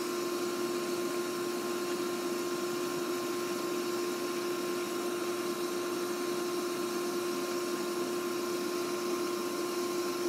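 Steady mechanical hum of a running motor, with a constant whine held at an even pitch and no change in speed.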